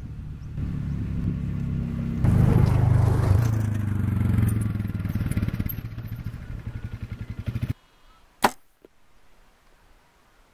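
A low steady drone swells about two seconds in, pulses near the end and cuts off abruptly. About a second later comes a single sharp crack of a compound bow shot, followed a moment later by a fainter knock.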